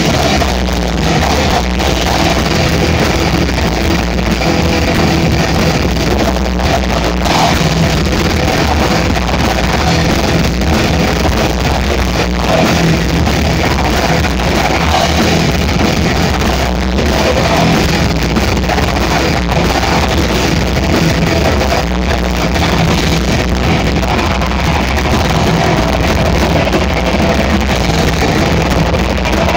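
Live metal band playing loud: electric guitars, bass guitar and a drum kit running without a break.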